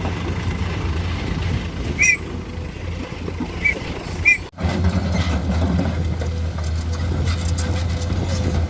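Heavy diesel engines of an excavator and dump truck running steadily, with three short high-pitched squeaks in the first half. The sound drops out for an instant about halfway through and comes back louder.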